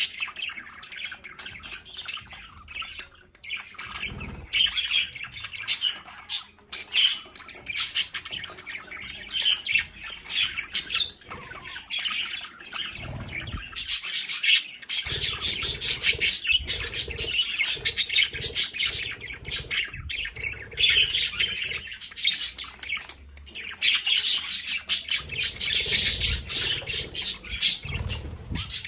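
Several budgerigars chattering and chirping together, a continuous busy warble broken by sharp squawks, growing denser about halfway through.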